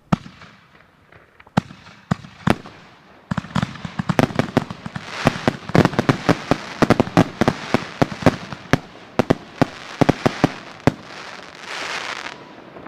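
Consumer fireworks fired from fused racks of mortar tubes: a few single bangs, then from about three seconds in a rapid barrage of dozens of overlapping bangs and crackles, ending in a brief hiss near the end.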